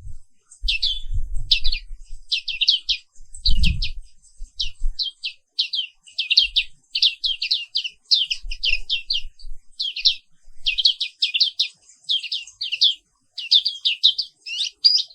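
A white-eye of the kind sold as 'pleci Papua' sings in rapid, high chirping runs of short notes, phrase after phrase with only brief pauses. A single dull thump comes about three and a half seconds in.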